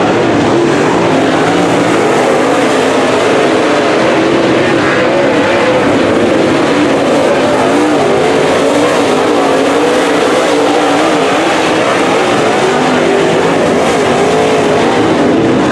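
Dirt late model race car's V8 engine running hard through a race, heard from inside the car. Its pitch keeps rising and falling lap after lap.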